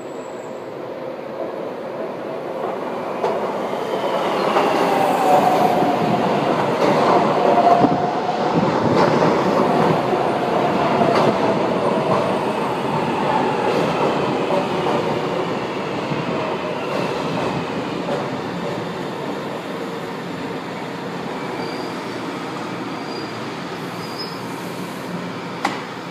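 São Paulo Metro Line 1 train pulling into the platform: wheels rumbling and clacking over the rails with a thin whine. It grows loud as the cars come alongside, about five seconds in, then slowly eases off.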